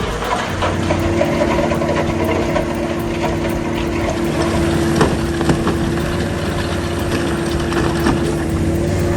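Heavy machine's engine running steadily with a constant hum, with scattered knocks and clanks.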